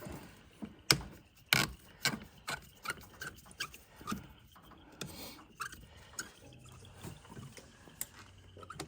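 Irregular clicks, clinks and knocks of hand tools and metal parts being handled while engine-bay fittings are undone on a car up on a lift, with one of the sharpest knocks about a second in.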